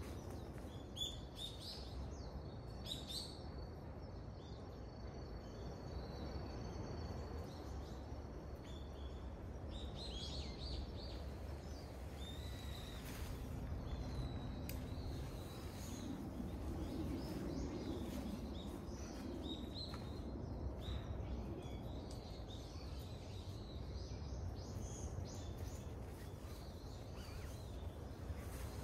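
Woodland ambience: small birds chirping now and then over a steady low background rumble.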